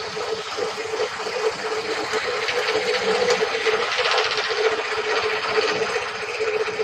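Table saw running with a steady hum, a harsher, louder rasp around the middle.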